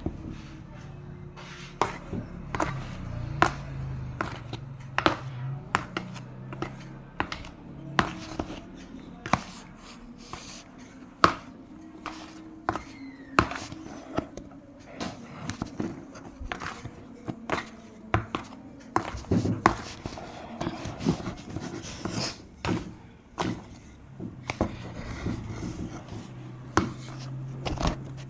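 Repeated sharp knocks of a hand tool against a container, irregular and roughly one or two a second, as a large batch of seasoned flour is mixed by hand without a machine, over a low steady hum.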